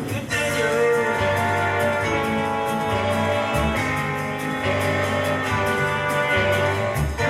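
Instrumental music with a steady beat: a break in the song with no singing.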